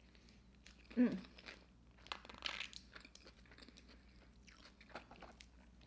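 Close-up chewing of French fries: soft crunches and small wet mouth clicks. There is a short hummed vocal sound about a second in and a brief rustle about two seconds in.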